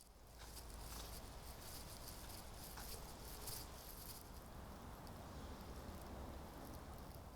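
Faint outdoor ambience: a low, steady rumble with a light patter and small ticks over it.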